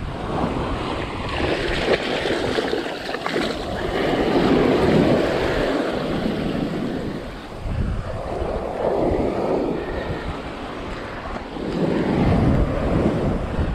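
Ocean surf washing up a sandy beach, swelling and fading in surges every few seconds.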